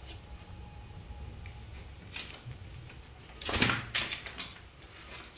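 Wet snakehead fish slapping and knocking on a tiled floor as they are handled and laid down. A few short bursts, the loudest a little past halfway.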